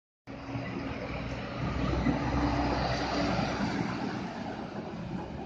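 Diesel engine of a fuel tanker truck running as it drives past close by. It grows louder about one and a half seconds in, then eases off.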